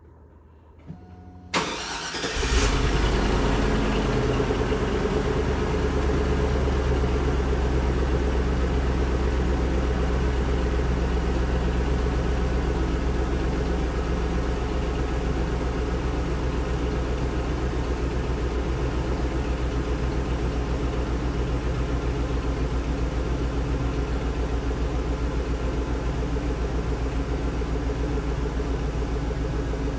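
A click, then a vehicle engine starts about two seconds in and settles into a steady idle.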